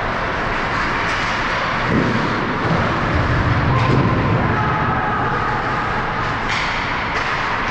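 Hockey rink game ambience: a steady wash of noise with a few sharp knocks in the second half.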